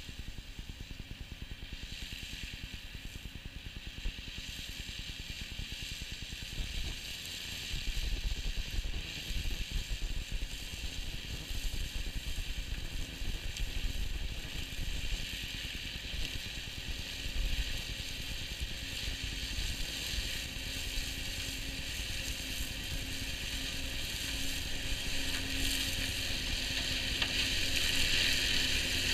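New Holland tractor running with a Shelbourne flail hedge cutter on its reach arm, the spinning flail head hissing as it mows the grass of a ditch bank over a steady engine hum. It grows louder near the end as the machine draws close.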